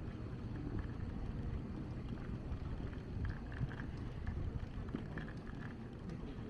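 Steady low wind rumble on the microphone of a camera riding on a moving bicycle, mixed with the bike's rolling noise over stone paving.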